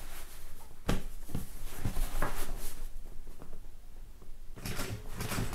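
A few light knocks and handling sounds, then about a second before the end an industrial sewing machine starts running slowly, a steady hum with quick rhythmic ticks as it top-stitches the vinyl top panel.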